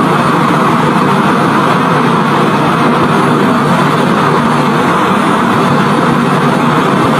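Fighter jet engines running on the ground: a steady, loud rushing noise with a faint low hum underneath, unchanging throughout.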